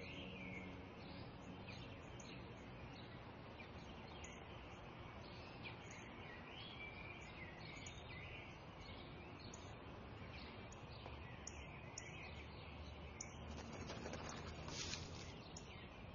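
Quiet outdoor garden ambience: small birds chirping and tweeting over a faint steady hiss, with a brief rustle near the end.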